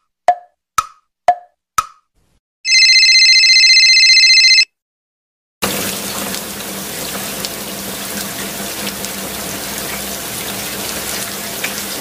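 A metronome ticking about twice a second, its clicks alternating higher and lower, stops about 2 s in. Next comes a steady electronic telephone ring lasting about two seconds, then the even hiss of steady rainfall from a little past halfway.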